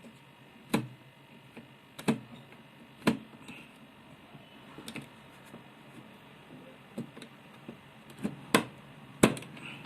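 Scattered sharp clicks and knocks from handling, five of them loud, with the loudest two near the end.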